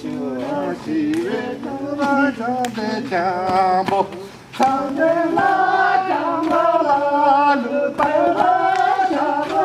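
A group of men and women singing a song together, with long held, wavering notes.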